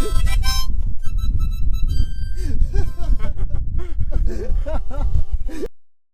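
Background music: a reedy melodic lead over deep bass, cutting off abruptly near the end.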